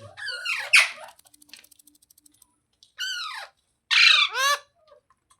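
Pet parrot squawking: a cluster of harsh calls in the first second, one about three seconds in, and two more just after four seconds.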